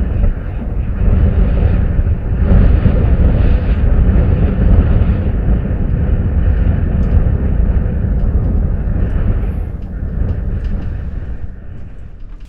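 Strong wind buffeting the microphone: a loud, steady low rumble that swells a couple of seconds in, eases off near the end and then cuts off suddenly.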